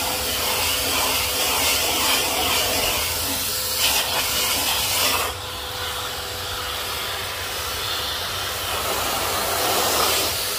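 Filter Queen Majestic canister vacuum running, its brush nozzle sucking fine dust off wooden furniture: a steady rush of air with a faint motor whine. The rushing drops slightly about five seconds in.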